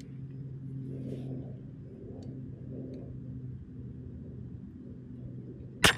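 A steady low hum, then near the end a single sharp shot from an 8.6 Blackout rifle firing a subsonic handload (14 grains of CFE Black, about 924 ft/s), with a short ring-out after it.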